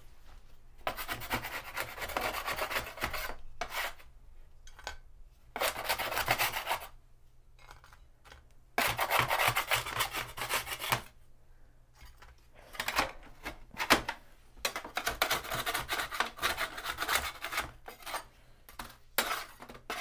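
Baked tofu cubes being scraped off a baking pan: rough scraping in about six separate passes of a second or two each, with short pauses between.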